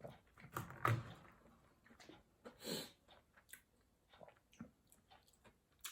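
A person chewing food with the mouth close to the microphone: soft, wet mouth clicks and smacks, a louder bite about a second in, and a short hiss about halfway through.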